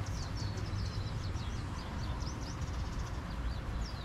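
Many small birds chirping in a quick, scattered series of short, falling high notes, over a steady low rumble.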